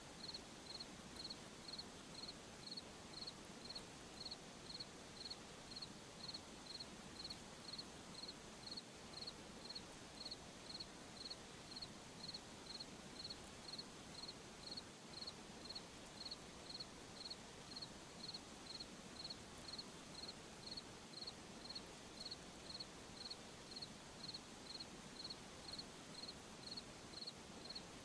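Cricket chirping steadily, a high-pitched chirp repeating evenly just under twice a second, over a faint hiss of night ambience.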